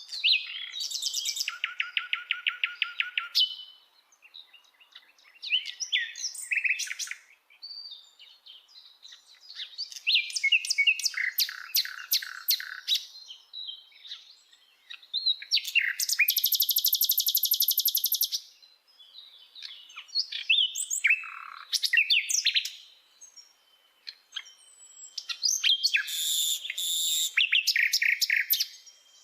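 Common nightingale singing a run of varied phrases separated by short pauses. Many phrases are built from fast repeated notes and rapid trills, some low and some very high.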